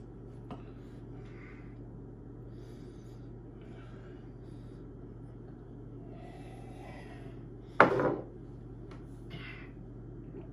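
Quiet handling noises from a miniature liquor bottle and a shot glass as a shot is downed, over a low steady hum, with one short loud thump about eight seconds in.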